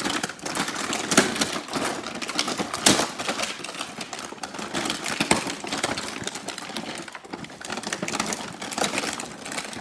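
Packaging of a toy tool set being handled and pulled open, a dense run of irregular crackles and clicks.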